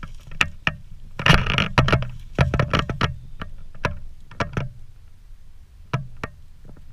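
Footsteps crunching through dry leaf litter, an uneven run of crackling steps, over a low steady rumble.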